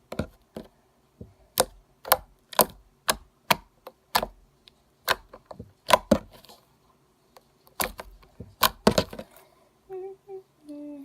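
Cold, sticky refrigerated slime being squished and stretched by hand, giving sharp irregular clicks and pops about one to two a second. Near the end the pops stop and a brief hum follows.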